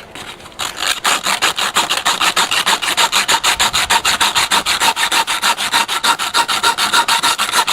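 A small wooden shutter slat being hand-sanded, its edges rounded with quick back-and-forth rubbing strokes of about five a second, starting about half a second in.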